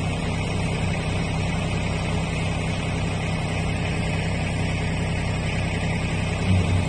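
Mahindra 1526 tractor's diesel engine running steadily.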